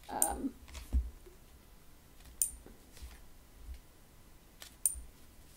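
A tarot deck being shuffled by hand: quiet handling of the cards with soft low bumps and three sharp card clicks spaced a couple of seconds apart.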